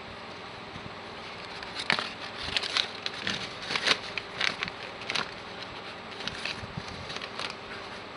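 Irregular crackling and rustling of parts packaging being handled, starting about two seconds in and dying away near the end, over a steady background hiss.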